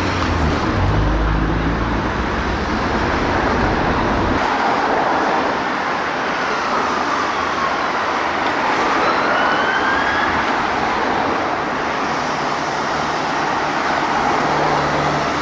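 Traffic with a heavy vehicle's low engine rumble, then from about four seconds in a Scania P280 fire engine's siren in slow wail mode, sweeping down and back up, over steady road traffic noise.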